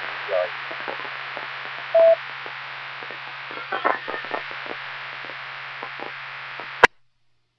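Two-way radio receiver hiss with a low hum and faint broken fragments of weak transmissions, and a short beep about two seconds in. Near the end a click, then the audio cuts to dead silence.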